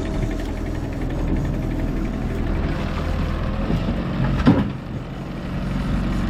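Boat engine running steadily at trolling speed, a low even hum. About four and a half seconds in, a brief loud sound with a bending pitch rises over it.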